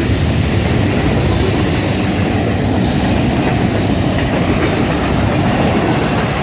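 Freight cars of a Florida East Coast Railway train, box cars and lumber cars, rolling past at close range: a steady rumble and clatter of steel wheels on the rails.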